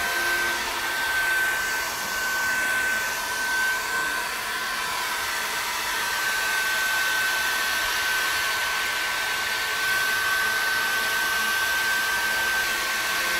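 Handheld hair dryer running steadily with a high whine over its rush of air, blowing hot air onto an opened stereo receiver's circuit boards to dry moisture off the microprocessor board.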